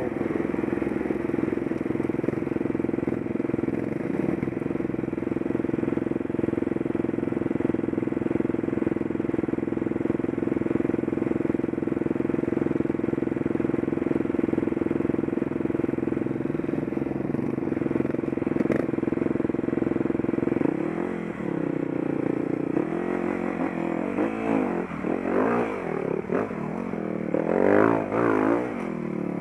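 Enduro dirt-bike engine running at a steady idle, then from about two-thirds of the way in revving up and down repeatedly as the bike pulls up a rocky climb, the loudest rev near the end.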